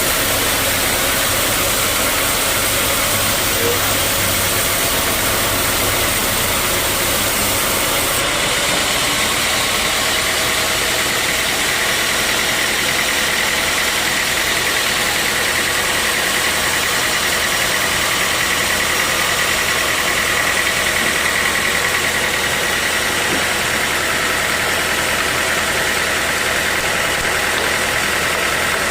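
Sawmill machinery running steadily with a constant engine-like drone. A high whine comes in about twelve seconds in and holds to the end.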